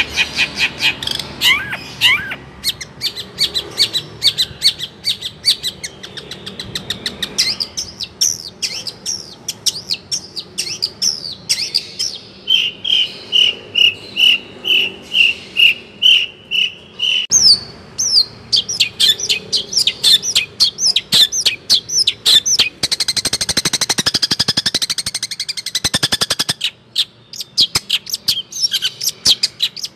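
A songbird singing loudly and close up: a long, varied song of quick chirps and sweeping notes, with a run of about ten evenly repeated whistled notes near the middle and a dense, rapid trill a little later.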